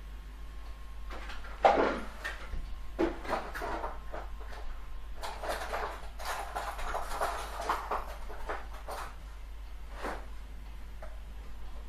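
Irregular clicking and clattering of small hand tools being handled, in two main flurries with a lone tick near the end: a smaller precision Phillips screwdriver being picked out of its set.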